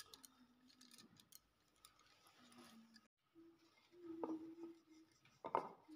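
Mostly near silence, with faint clicks of dough work and two soft knocks about four and five and a half seconds in, from a wooden rolling pin working small rounds of golgappa dough on a wooden board.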